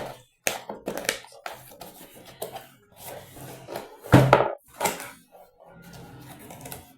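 Packaging of a cordless drill being handled and opened: a run of knocks, taps and rustles of the box and its contents, the loudest knock a little past the middle.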